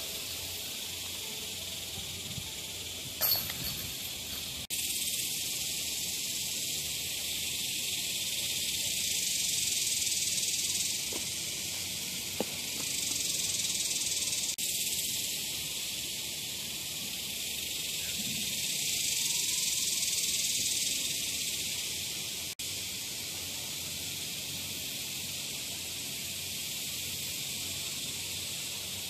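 Cicada chorus: a steady high buzzing hiss that swells and fades in slow waves, with one sharp knock about three seconds in.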